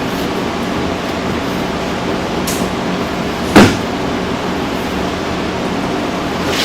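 Steady background shop noise with a low hum, broken about halfway through by one sharp, loud knock, as of a part or tool handled during reassembly; a couple of fainter clicks come before and near the end.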